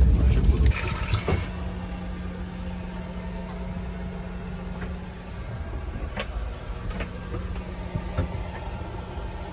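Airbus A321neo cabin hum, steady with a low tone, and a few light clicks. A louder low rumble cuts off sharply less than a second in, followed by a brief hiss of air.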